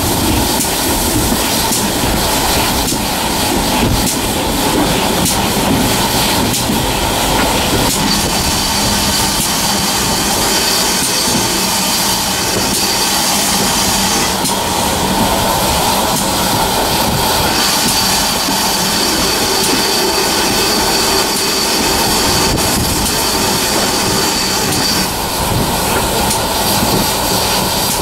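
Steam-hauled train behind GWR small Prairie tank engine 5521 rolling slowly along the line, heard from an open carriage window: a steady rumble and rattle of wheels on the rails. A high squeal comes and goes from about eight seconds in until near the end.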